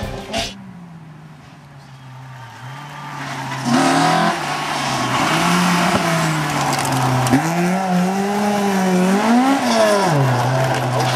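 A rally car engine on a gravel stage, faint at first, then loud from about four seconds in as a green Opel rally car approaches and passes. The engine note rises and falls with the throttle and gear changes, with a sharp dip partway through and another fall near the end.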